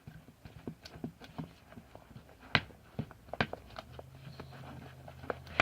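A spatula stirring glue and shaving cream in a mixing bowl, making irregular clicks and scrapes against the bowl, with two louder knocks past the middle.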